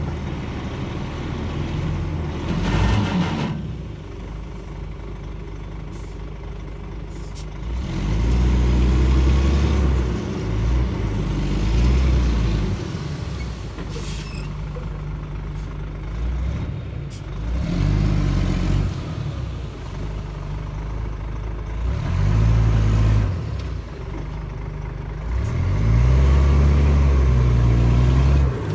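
Shantui DH17C2 bulldozer's diesel engine working, its note swelling under load every few seconds as it pushes soil. There is a brief hiss about three seconds in and a few sharp clanks.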